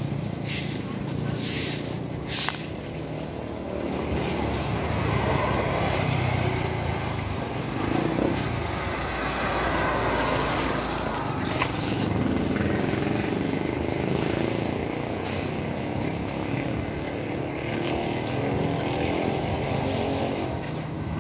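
A few brisk scrapes of a stick broom on wet concrete in the first couple of seconds, then steady street traffic noise of passing vehicles.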